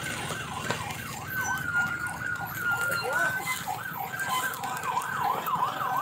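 Siren sounding a rapid up-and-down yelp, several sweeps a second, with a long steady tone held for about two seconds partway through, over a low background rumble.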